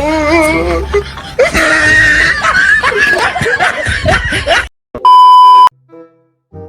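Young women laughing and shrieking, then the sound cuts out and a loud, steady electronic beep sounds for about half a second near the end.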